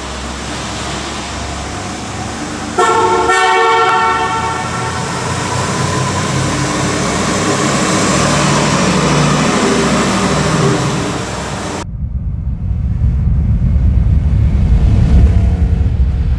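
A 1986 Oldsmobile Cutlass 442's 307 V8 running as the car drives up, growing louder. Its horn sounds once for about two seconds, a few seconds in. After an abrupt cut about twelve seconds in, a deep rumbling takes over.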